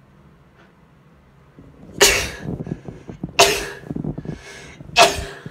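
A woman sneezing three times in quick succession, with short breaths drawn between the sneezes.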